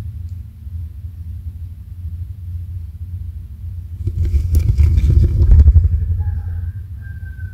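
A steady low rumble that swells about four seconds in into a louder stretch of rustling and clicking lasting about two seconds, followed near the end by a faint, thin, high bird-like call.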